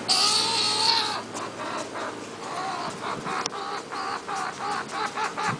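Baby skunk crying to be picked up: a drawn-out squealing cry about a second long, then a rapid run of short chirping cries, about three a second.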